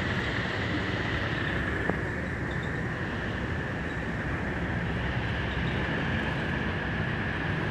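Steady street traffic: bus and motorcycle engines running and passing, with a thin steady high tone over the rumble.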